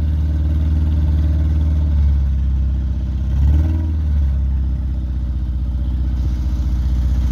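Citroën CX rally car's four-cylinder engine running at idle with an uneven, boat-like chug, briefly revved about three and a half seconds in. One cylinder is not firing: the engine is running on three cylinders, which the crew hope will clear once it warms up.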